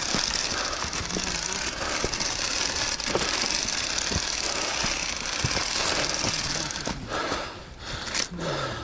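Continuous rough rattling and clattering with a steady hiss, easing off near the end.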